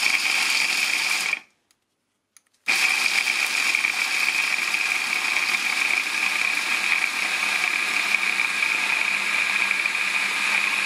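Silvercrest SSMS 600 E6 600 W hand blender running its chopper blade through walnuts at medium speed (setting 3–4, not turbo), a steady high whirring with the nuts being ground. It stops about a second and a half in, then starts again about a second later and runs steadily on.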